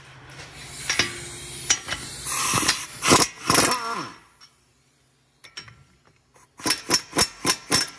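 Metal hand tools clinking and rattling as sockets and a wrench are handled, with two louder scraping bursts in the first half. After a short quiet gap comes a quick run of about eight sharp metallic clicks near the end.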